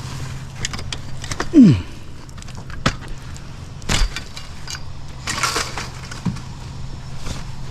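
Steady low hum of an idling vehicle engine, with scattered knocks and clatter and one short, loud, falling squeal about a second and a half in.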